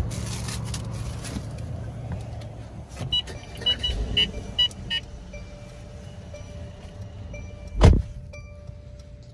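Inside a Mercedes car with the engine running: a sharp knock at the start, a string of short high warning chimes a few seconds in, and a heavy thump like a car door shutting near the end, over a steady low hum.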